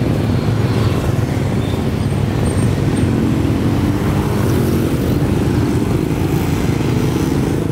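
Small motorcycle and scooter engines running as several bikes ride past close by, over a steady traffic rumble. The engine hum is strongest around the middle.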